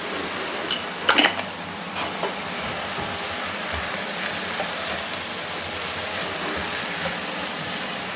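Green vegetables sizzling in a nonstick frying pan as they are stir-fried with a silicone spatula. A couple of sharp knocks come about a second in.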